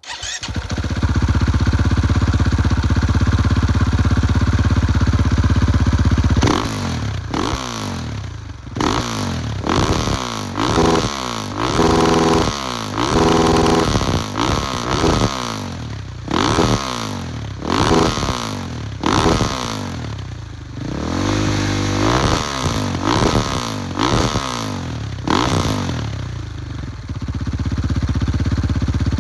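A KTM EXC-F 500's single-cylinder four-stroke engine, breathing through an FMF header and Akrapovic slip-on exhaust, runs steadily for about six seconds. It is then blipped again and again, each rev rising and dropping back, with a couple of revs held briefly. Near the end it settles back to a steady run.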